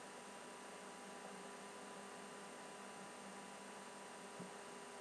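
Faint steady electrical hum with hiss: background room tone, with one small tick near the end.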